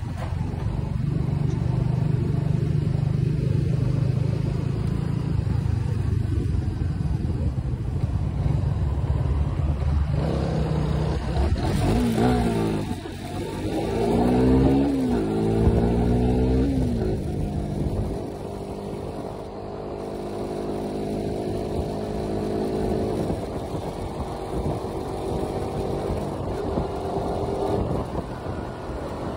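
Suzuki Raider R150's single-cylinder four-stroke engine accelerating through the gears, its pitch climbing and dropping at each shift a few times near the middle, then pulling steadily and slowly rising in pitch. Wind buffets the microphone heavily in the first part.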